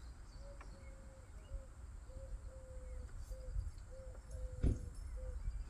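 A bird calling steadily in the background: short notes at one even pitch, repeated about twice a second. There is a faint low rumble, and a soft knock about four and a half seconds in.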